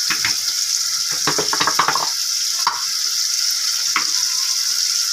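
Chopped onion and small shrimp sizzling steadily in hot oil in an aluminium pot, with a few short crackles and clicks, most of them about a second and a half in.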